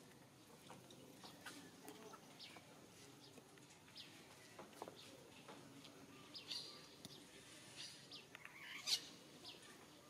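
Faint, scattered bird chirps: short, high calls that drop in pitch, a few every second, with a louder call about nine seconds in.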